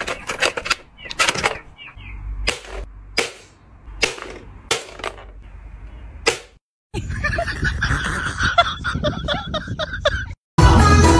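Red plastic toy ball launcher firing, a rapid series of sharp pops and clicks as it is loaded and shot at a felt target. After a short break come a few seconds of busier clattering noise.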